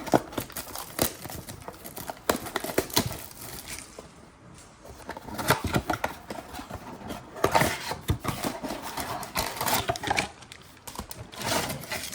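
Foil trading card pack wrappers crinkling and being torn open, with cards handled, in irregular bursts of crackling rustle.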